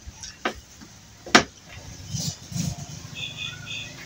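Eating by hand: a few sharp clicks and smacks, the loudest about a second and a half in, as fingers work rice and fried tilapia on a plate, with low mouth noises. A bird chirps briefly near the end.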